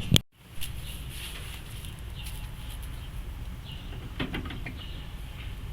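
Light metallic clicks and clinks of hand work on a truck's front wheel hub, as the washer and outer wheel bearing are taken off, over a steady low rumble. There is one sharp click at the start, followed by a brief dropout, and a small cluster of clicks about four seconds in.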